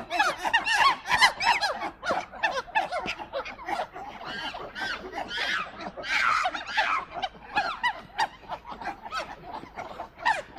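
A flock of poultry calling together: many short, overlapping honking and squawking calls at once, without pause.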